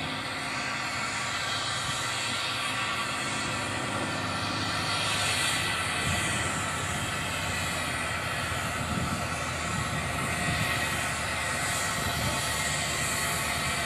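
Small industrial steam tank locomotive running slowly with a carriage in tow: a steady hiss of steam over the low rumble of wheels on rails.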